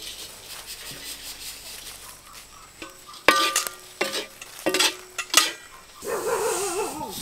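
Spatula stirring dry coconut burfi mixture in a pan with a faint sizzle, then about four sharp, briefly ringing knocks of the spatula against the pan. Near the end a wavering pitched sound comes in.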